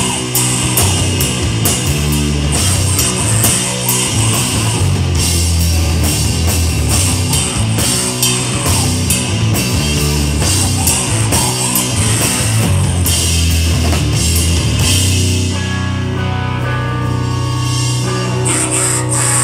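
Loud heavy rock played live on a drum kit and a distorted, amplified guitar, with dense cymbal crashes over heavy low notes. About three seconds before the end the drums drop out, leaving held guitar notes, then the drums crash back in.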